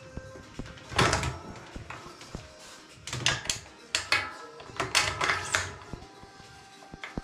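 A series of knocks and rattles from objects being handled, in irregular clusters, with faint background music.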